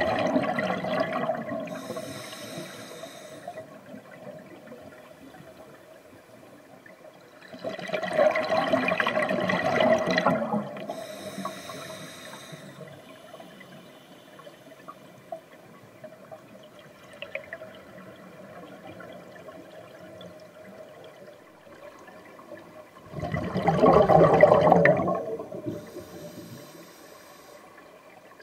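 Scuba diver breathing through a regulator underwater: three bursts of exhaled bubbles, each two to three seconds long, at the start, about eight seconds in and about twenty-four seconds in. A short high hiss follows each burst, with quieter water sound between.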